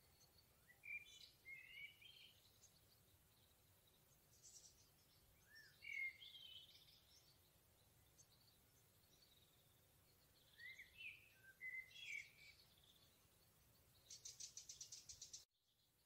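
Songbirds singing faintly in a forest: three bouts of short, warbling phrases of rising and falling notes, then near the end a rapid trill of evenly repeated high notes that cuts off suddenly.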